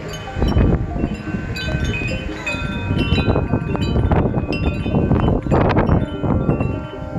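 Wind chimes ringing and clanging in a blizzard's gusts, with strong wind rumbling on the microphone.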